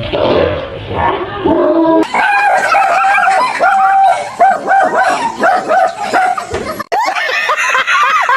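A dog yipping and whining in short, repeated pitched calls.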